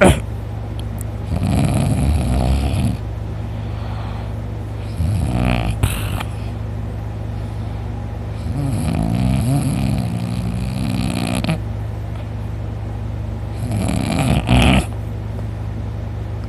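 A man snoring loudly in deep sleep, four long rasping snores a few seconds apart, over a steady low hum.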